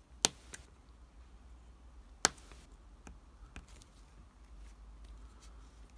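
Craft knife cutting through the end of a plasticard (styrene sheet) strip: two sharp clicks about two seconds apart as the blade snaps through the plastic, followed by a few fainter ticks.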